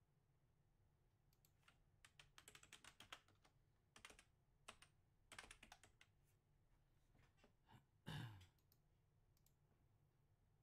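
Faint computer keyboard typing: short runs of quick keystrokes and clicks over several seconds, then a single soft thump about eight seconds in.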